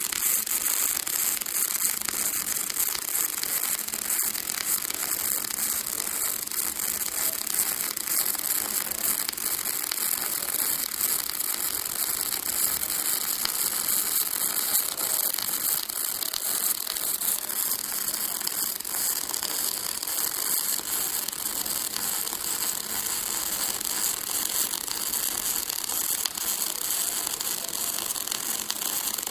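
Robotic pulsed gas metal arc (pulsed MIG) welding arc burning continuously: a steady, dense, high-pitched crackling hiss.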